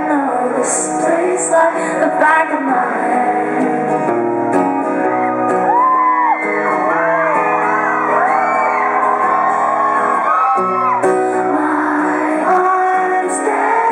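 Live acoustic pop performance in a large hall: a woman singing over acoustic guitar, with the audience singing along and whooping.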